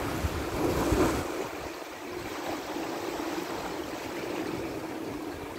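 Wind buffeting the microphone for about the first second, then the steady wash of sea surf breaking on the beach.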